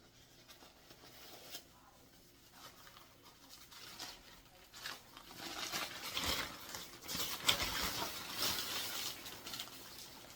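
A small folded tarp being opened up, its sheeting crinkling and rustling. It is faint at first and grows into a dense crackling from about halfway in.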